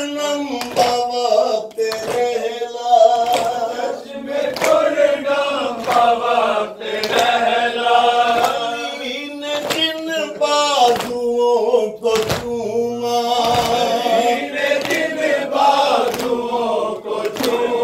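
Men's voices chanting a noha together, with steady rhythmic chest-beating (matam): open-handed strikes on the chest a little under a second apart keep the beat under the chant.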